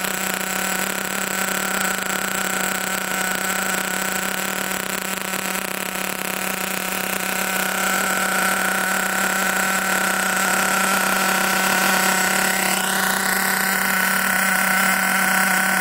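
Small nitro engine of an HPI Trophy 4.6 Truggy running steadily on a stand during break-in, getting slightly louder about two-thirds of the way through.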